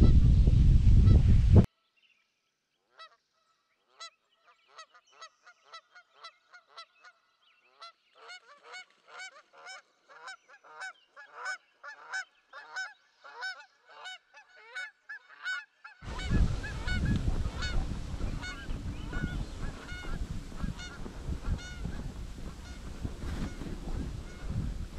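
A flock of geese honking, many short calls overlapping and growing busier. It opens with a brief loud rush of wind that cuts off suddenly, and about two-thirds through heavy wind noise on the microphone comes up under the calls.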